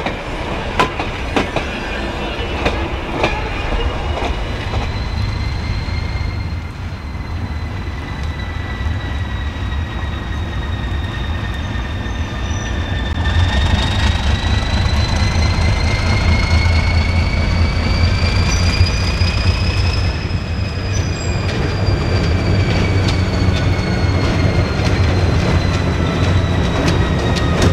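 Alco RS-1 diesel-electric locomotive, with its six-cylinder turbocharged engine, running with a freight train: a steady low engine rumble that gets louder about halfway through, over a high whine that rises and then falls. A few sharp clanks come in the first few seconds.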